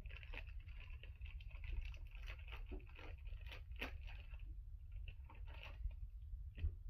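Faint, irregular crinkling and small clicks of plastic packaging and small plastic fidget toys being handled, thinning out about two-thirds of the way through.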